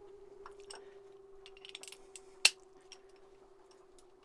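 Scattered light clicks and scrapes of a wrench and socket extension working the starter's mounting bolts on a Yanmar diesel, with one sharp metallic click about two and a half seconds in. A faint steady hum runs underneath.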